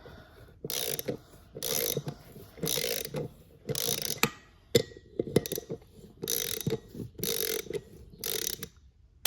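Hand socket ratchet clicking in short repeated strokes, about one a second, with a few sharp clicks between, as it works the nuts of a three-wheeler's front wheel rim.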